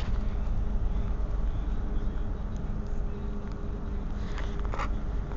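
Steady drone of a ferry's engines with a low hum, under wind rumbling on the microphone on an open deck. Two brief clicks come about four and a half seconds in.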